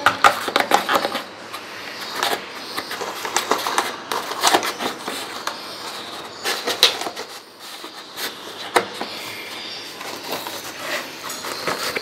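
Hand-cranked red plastic food grater crunching nuts into crumbs, with irregular clattering and rattling of the plastic parts and crank.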